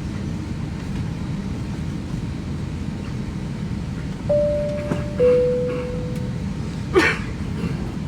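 Airliner cabin's steady background hum, with a two-note high-low cabin chime about four seconds in, the higher note then a lower one fading away. A short sharp noise follows near the end.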